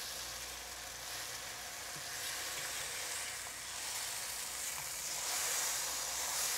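A fig frying in sugar in a hot pan: a steady sizzle as the sugar caramelizes, growing a little louder near the end.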